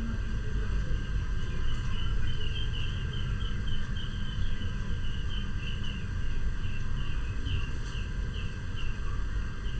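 A bird chirping over and over, short high chirps about two a second, over a steady low rumble.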